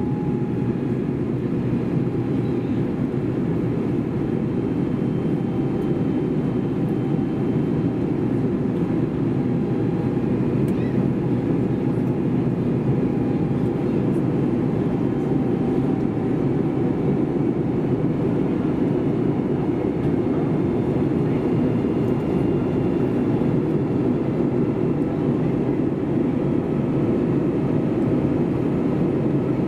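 Airbus A321neo cabin noise in flight: a steady, deep rush of engines and airflow, with faint whining tones above it that drift slowly in pitch.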